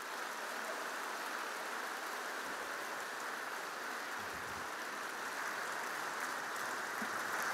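Large audience applauding: continuous, even clapping that grows a little louder near the end.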